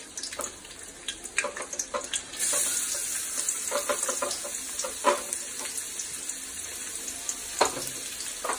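Chopped ginger and garlic sizzling in hot oil in an aluminium kadai, with a scatter of sharp clicks. The sizzle gets louder about two and a half seconds in.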